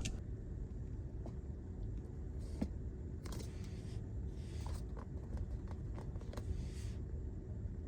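Steady low rumble inside a Tesla Model Y's cabin, with a few faint clicks and short rustles scattered through it.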